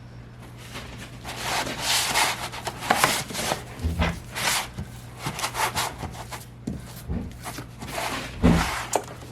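Hands pressing and smoothing a sheet of vinyl onto a Cricut cutting mat: repeated rubbing swishes, with a few soft thumps about four, seven and eight and a half seconds in.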